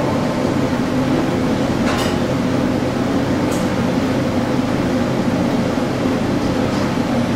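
Steady mechanical hum of a commercial kitchen's ventilation. Twice there is a light clink of a spoon against a small bowl.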